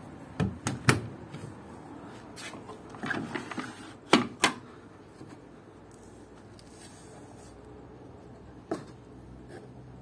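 A Zanussi front-loading washing machine's door is pushed shut, latching with a few sharp clicks about half a second in. A few seconds later its plastic detergent drawer is pulled out, with a short rattle and two loud knocks, and one more light click near the end.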